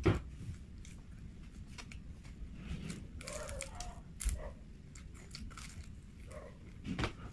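Eating sounds: a person biting and chewing Korean fried chicken close to the microphone, with a few sharp crunching clicks.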